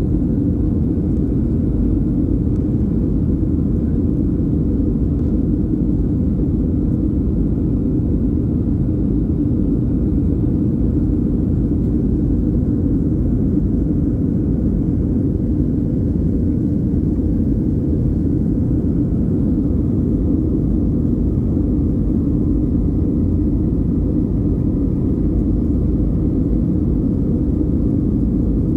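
Steady low-pitched cabin noise inside a Boeing 737-800 during the climb, from its CFM56-7B turbofan engines and the airflow over the fuselage, heard from a window seat.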